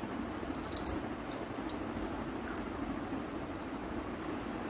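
Eating sounds from crisp pani puri shells: a few short crackles as the shells are broken open and chewed, over a steady low hum.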